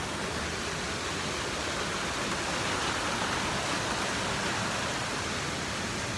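Stream water rushing over rocks: a steady, even rush of water.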